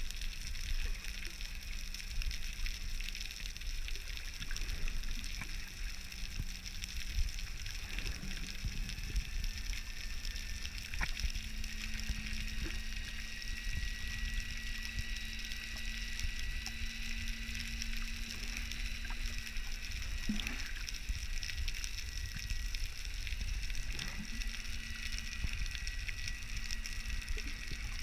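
Underwater ambience heard through the water: a steady low rumble and a faint steady hum, with scattered faint clicks.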